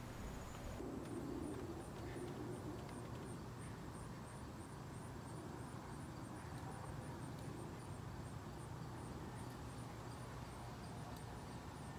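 Faint outdoor ambience: a low, steady distant rumble with a soft, high-pitched chirp repeating about twice a second.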